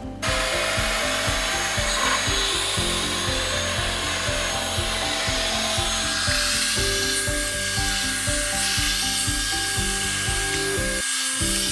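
Lefant M320 robot vacuum running, a steady suction-fan hiss as it sweeps up loose cat and dog hair, over background music with a steady beat.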